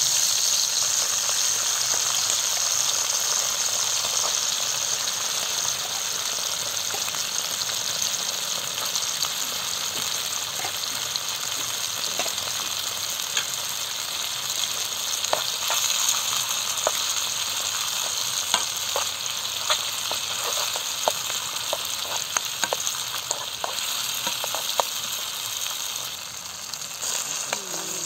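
Chicken, onions and sour plums sizzling in oil in a frying pan, a steady hiss with sharp pops that grow more frequent from about halfway.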